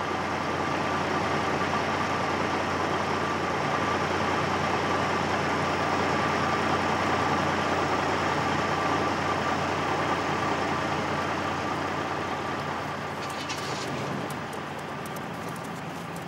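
Peterbilt semi-truck's diesel engine idling with a steady hum, with a few light clicks about three-quarters of the way through.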